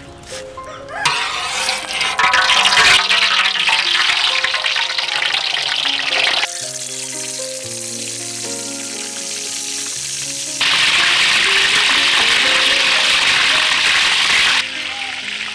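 Stingray pieces deep-frying in hot oil in a steel wok, a loud sizzle that starts about a second in, drops back partway through and comes back strongly, with background music throughout.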